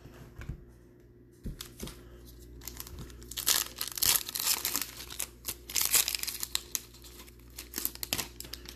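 Foil wrapper of a 2021 Prizm Draft Picks football card pack being torn open and crinkled by hand. A run of crackling rustles starts about two and a half seconds in and is loudest in the middle.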